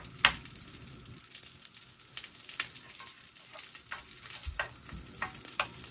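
Pre-cooked basmati rice frying in hot oil in a pan: a steady sizzle with scattered crackles and spits, and a sharp knock just after the start.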